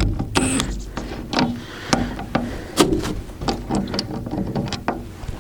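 Irregular knocks, clanks and scrapes of a replacement hinge bracket and the wood chipper's steel chute being worked while the bracket is fitted, with a few sharper strikes about two and three seconds in.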